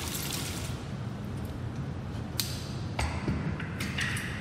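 Handheld emergency drench hose head being hung back in its wall bracket: a few sharp clicks and knocks of hard plastic and metal in the second half, after a hiss that dies away in the first second.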